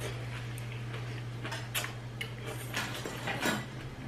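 Scattered light clicks and clinks of chopsticks and spoons on bowls and plates during a meal, over a faint steady low hum.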